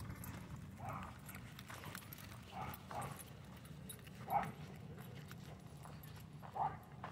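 Dogs at play making short, faint sounds, about five of them a second or two apart, over a steady low background hum.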